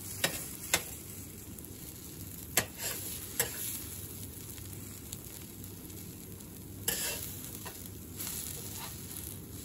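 Okonomiyaki batter sizzling on a steel teppanyaki griddle, with a metal spatula clicking and scraping against the plate about five times as it pushes in the pancake's edge.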